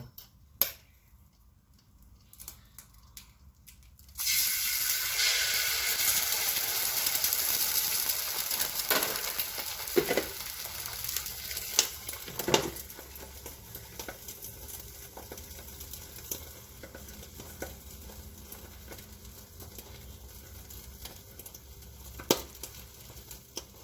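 An egg frying on the hot, lightly oiled nonstick plate of a Kenwood electric health grill. After a few clicks, a loud sizzle starts suddenly about four seconds in as the egg hits the plate, then slowly dies down to a steady, softer sizzle, with a few light taps.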